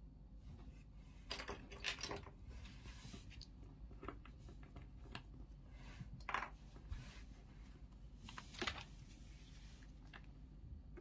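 Small plastic LEGO bricks being handled: scattered quiet clicks and clatters as pieces are picked out and pressed together, the loudest about six and eight and a half seconds in.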